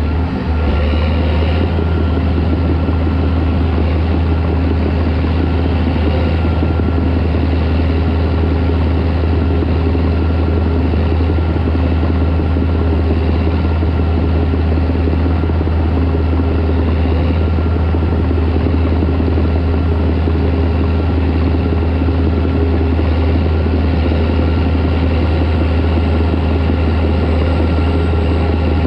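Caterpillar D4 crawler tractor's diesel engine running steadily under a constant deep drone, with no change in speed.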